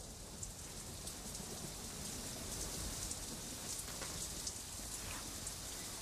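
Monsoon rain falling steadily on forest foliage: an even hiss, with single drops striking now and then.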